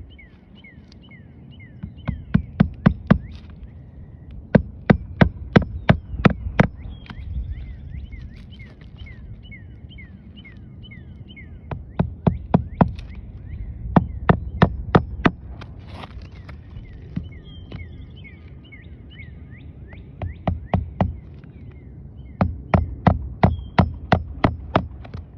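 Hammer driving nails into a new roof shingle: quick runs of sharp strikes, about four to nine in a row, repeated several times with pauses between.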